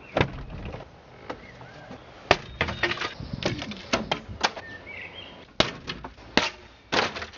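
Hammer blows on wooden wall planks, with boards knocking and cracking as the plank wall is knocked apart: irregular sharp strikes, some in quick clusters, the loudest about two seconds in and again near six seconds. A bird chirps faintly a couple of times.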